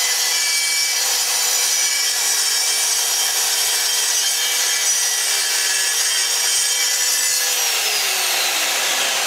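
Budget plunge track saw with a 24-tooth blade running under load, cross-cutting half-inch plywood with a steady motor whine. About seven and a half seconds in, the pitch starts falling as the saw is switched off and the motor and blade spin down.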